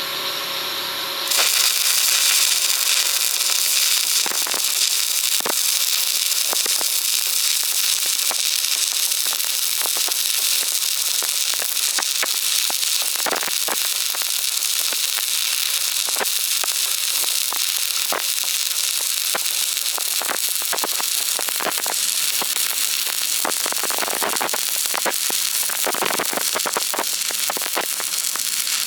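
Electric arc welding: a steady crackling hiss with frequent sharp pops, which starts abruptly about a second in.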